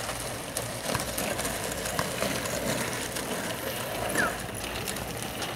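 Skateboard and kick-scooter wheels rolling on asphalt, a steady rolling noise with a few light clicks, and a short high chirp about four seconds in.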